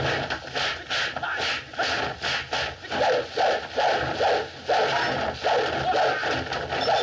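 Kung fu film fight sound effects: a fast, continuous run of swishes and blows, about three a second.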